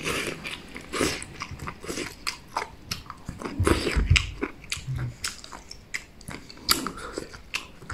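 A person eating rice noodles with chopsticks: a run of short, irregular slurps and chewing sounds, eaten 'hulu hulu' (slurp, slurp) straight from the bowl.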